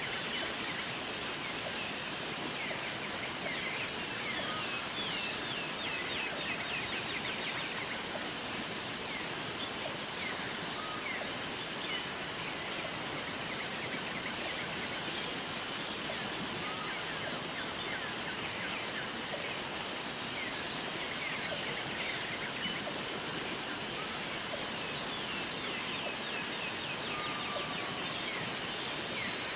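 Jungle waterfall ambience: a steady rush of falling water, with scattered bird chirps and a high buzzing that comes and goes every few seconds.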